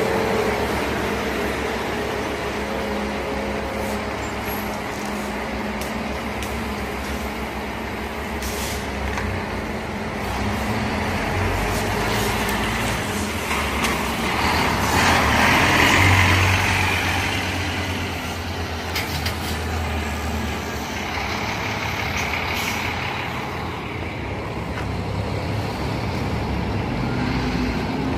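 Scania K360 coach's diesel engine running steadily. About halfway through the engine grows louder and a hiss of air rises over it, then both settle back.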